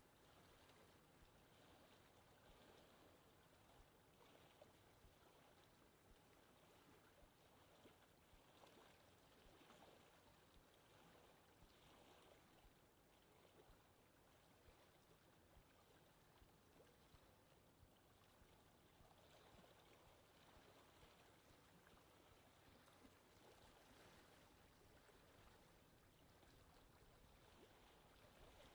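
Faint, steady soft wind: an even, continuous breeze with no gusts.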